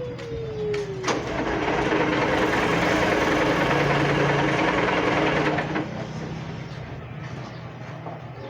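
A heavy engine revs up about a second in, runs loud and steady for about five seconds, then drops back to a lower running sound. A falling whine is heard in the first second.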